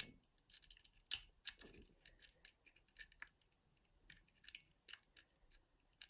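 Metal pick and tension tool clicking and scraping inside a mortice lever lock as its levers are worked: a string of sharp, irregular small ticks, with one louder click about a second in.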